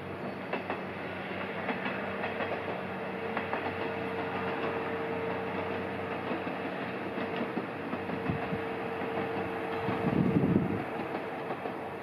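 Iyonada Monogatari diesel sightseeing train running by, a steady engine hum with wheels clicking over the rail joints. A brief louder low rumble comes about ten seconds in.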